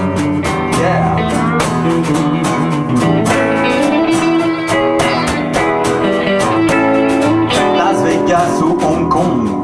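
Live band's instrumental intro on guitars: an acoustic guitar and two electric guitars playing together over a steady beat.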